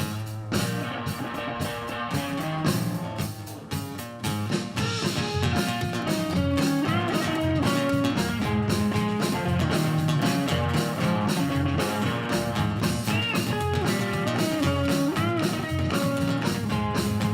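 Live rock band playing an instrumental break: a guitar lead with bending notes over bass and drums.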